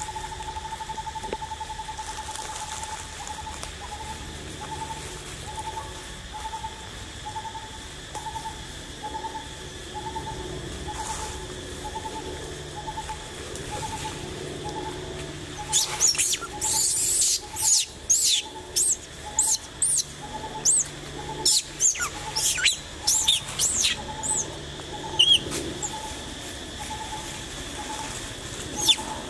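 Forest ambience: a bird's single hollow note repeats steadily, about three times every two seconds. From about halfway through, a flurry of loud, sharp, high chirps breaks in for several seconds, then stops.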